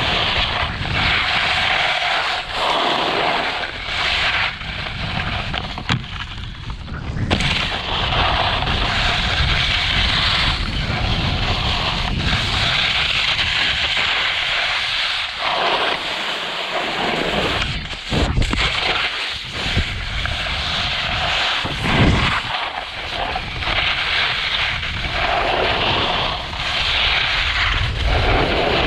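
RVL8 Blunt XL skiboards hissing and scraping over groomed snow through a run of carved turns, with wind rushing over the pole-mounted camera's microphone; the noise swells and dips with each turn.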